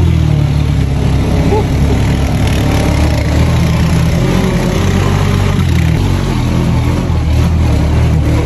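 Off-road buggy's engine running steadily during the ride, a loud, low engine drone.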